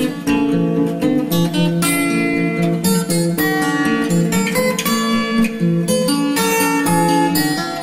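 Background music led by acoustic guitar, a run of plucked and strummed notes at a steady, even loudness.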